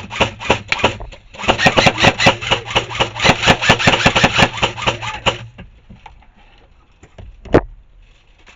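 Airsoft electric rifle firing rapid shots over the steady hum of its gearbox motor. A short string runs into the first second, then after a brief gap a sustained full-auto burst of about four seconds stops abruptly. One more single shot comes near the end.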